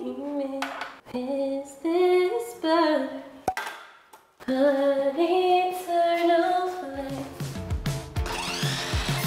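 Background pop music with a woman singing a stepping melody. It cuts out for about a second midway, then resumes, and a bass and drum beat comes in near the end.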